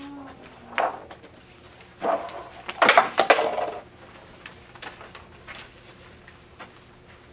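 A few short bursts of voice, the loudest lasting about a second, with a sharp knock shortly before them.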